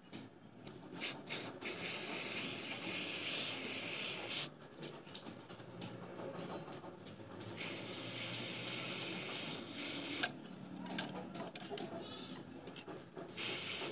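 Aerosol spray paint can hissing in long bursts, two of about three seconds and a shorter one near the end, with small handling clicks between.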